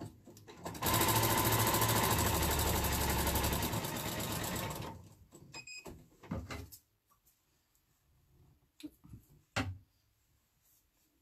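Electric sewing machine stitching a seam through layered fabric, running fast and steady for about four seconds, then stopping. A few light clicks and knocks follow.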